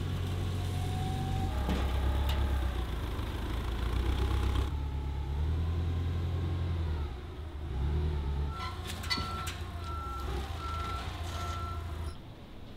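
Forklift engine running, its pitch rising and falling as it lifts and carries a car, with a few knocks. About two-thirds of the way in its reversing alarm starts a repeated single-pitch beep.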